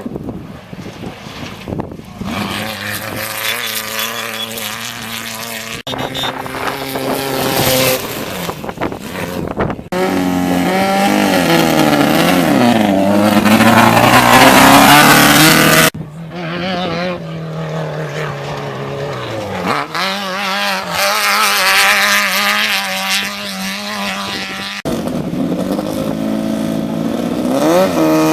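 Off-road desert race vehicles' engines revving hard as they pass, the pitch rising and falling with each pass. The sound changes abruptly several times, as one pass gives way to the next.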